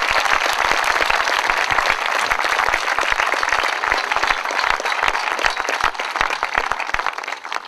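A large crowd applauding, a dense patter of many hands clapping that thins out and dies away near the end.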